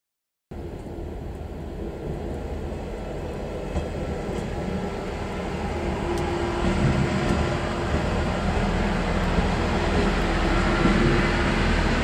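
Engines of a KiHa 40 series diesel railcar train running, a steady low rumble with a faint hum that grows gradually louder after half a second of silence.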